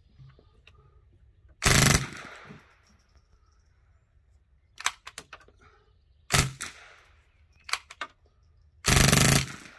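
Ruger 10/22 .22 LR rifle converted to fire full-auto from an open bolt, firing short bursts of rapid shots. There is a burst about two seconds in, a few quicker pops around the middle, another short burst soon after, and the longest burst near the end.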